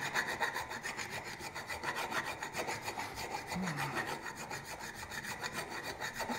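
Half-round hand file rasping back and forth across the cast aluminum of a Harley-Davidson Sportster rocker box, in quick short strokes, several a second.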